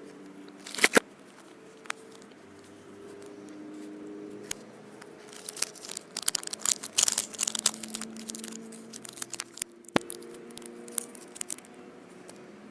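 A plastic toy surprise egg being handled and opened by hand: sharp plastic clicks and snaps, with crinkling and rustling of packaging, busiest in the middle of the stretch.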